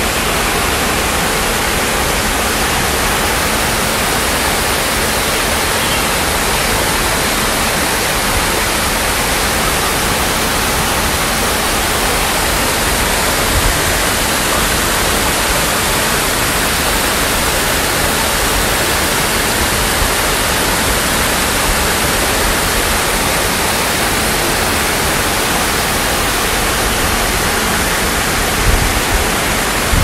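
Small tiered rock waterfall spilling over stone ledges into a pond: a steady, even rush of falling water.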